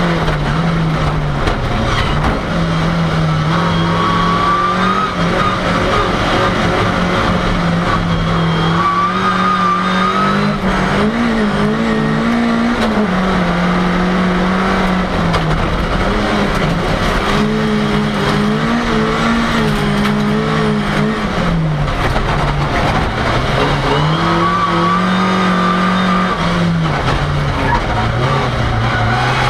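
Ford Cortina's engine at speed, heard from inside the cabin. The engine note rises and falls repeatedly, with short dips every few seconds as the driver lifts off or changes gear.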